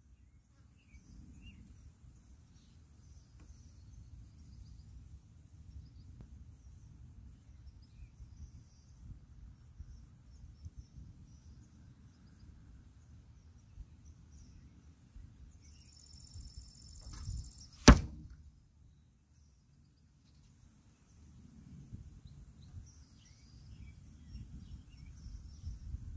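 A single bow shot about two-thirds of the way in, a sharp snap of the string release, over a low wind rumble on the microphone.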